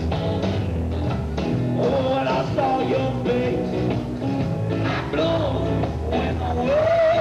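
Live rock band playing, with a lead line that bends and wavers in pitch over a steady low bass.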